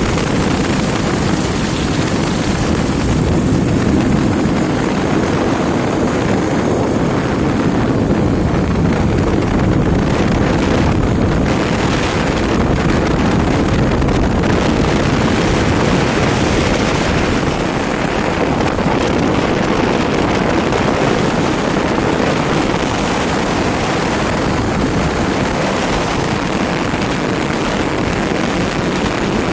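Steady rush of wind over the microphone of a motorcycle riding at road speed, mixed with the bike's running and road noise.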